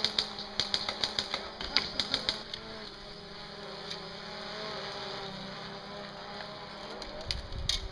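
Short bursts of sharp clicking in the first few seconds, typical of airsoft guns firing at a distance. Beneath it runs the steady hum of a camera drone overhead, its pitch wavering slightly. A couple more clicks come near the end.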